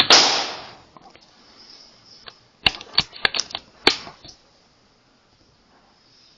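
An Air Arms S510 Ultimate Sporter .177 PCP air rifle (sub-12 ft-lb) fires once, a sharp crack with a short ringing tail. About two and a half seconds later comes a quick run of six or seven sharp metallic clicks over about a second and a half, typical of the sidelever action being cycled to load the next pellet.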